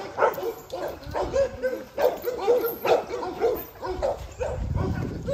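Pit bulls barking and yipping over and over, short high barks coming two or three a second.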